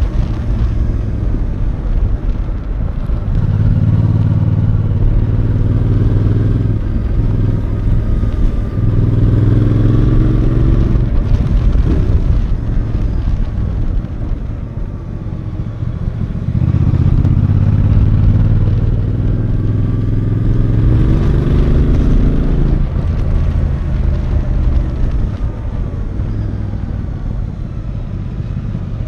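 Royal Enfield Bear 650's 648cc parallel-twin engine and exhaust heard from the rider's seat, pulling up through the revs several times and easing off in between as the bike is ridden.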